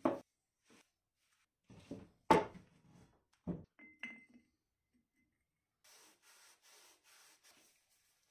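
Heavy metal parts of an old dividing head knocking and clanking on a workbench, the loudest knock about two seconds in, with a brief metallic ring about four seconds in. From about six seconds on, a cloth rubs back and forth along a round steel bar in a series of soft strokes.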